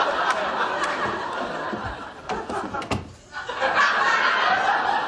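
Studio audience laughing, dying away about three seconds in and then rising again, with a few light knocks in the mix.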